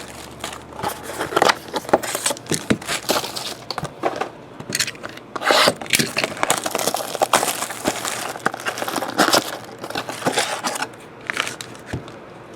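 Plastic shrink-wrap being torn and crinkled off sealed trading card boxes. It is an irregular run of tearing, crackling and scraping.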